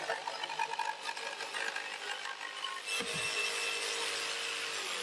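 Mafell P1cc 900 W jigsaw cutting a long straight cut through chipboard along a guide track. The sound changes about three seconds in to a steadier hiss.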